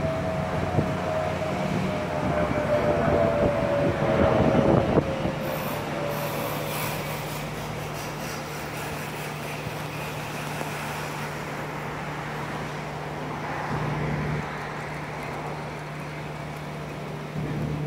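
A jet airliner passing low overhead: a loud engine rumble with a whine that slowly falls in pitch. About five seconds in it fades to a quieter, steady low hum.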